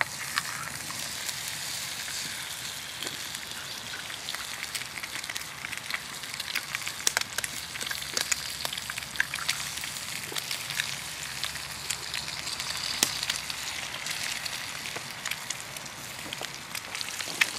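Bacon and eggs sizzling in a frying pan over a wood fire: a steady hiss with frequent small pops and crackles.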